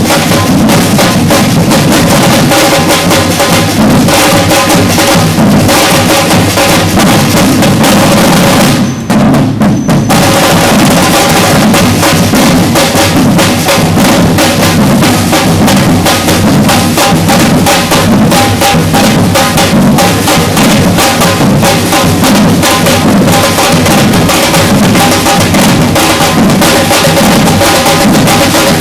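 Batucada drum ensemble playing a loud, dense rhythm on bass drums, snares and other percussion, with a momentary dip about nine seconds in.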